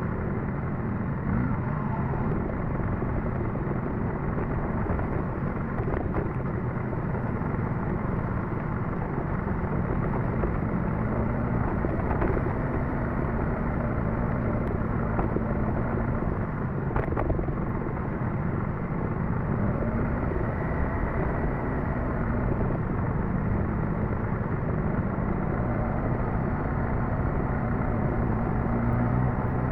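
Suzuki GSX-S1000GT's inline-four engine running steadily as the motorcycle is ridden, with road noise underneath and one brief click a little past halfway.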